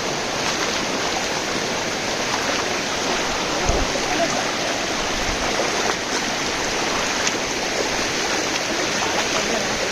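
Steady rushing of a fast-flowing stream, full and loud with monsoon rainwater.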